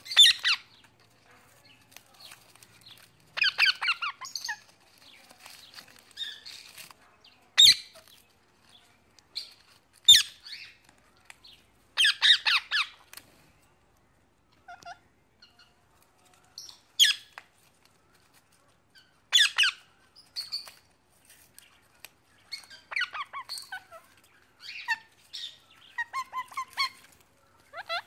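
Parrots squawking: short, loud, harsh screeches every few seconds, with a busier run of smaller calls near the end.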